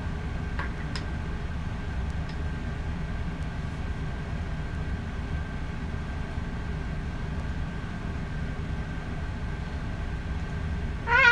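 Steady low background rumble with a faint steady hum above it, and a few faint clicks in the first couple of seconds. A child's high voice comes in at the very end.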